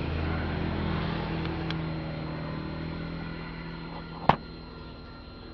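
Hug amplified speaker playing from a USB stick very weakly even at full volume, mostly low bass notes that fade toward the end: the speaker has a low-output fault. A single sharp click about four seconds in, as a panel button is pressed.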